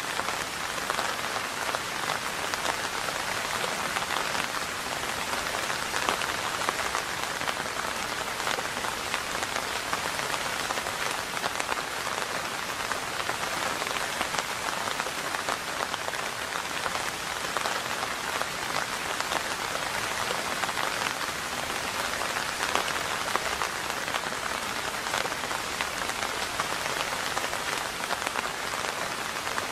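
Steady rain falling: an even hiss made of many small drop strikes, with no let-up.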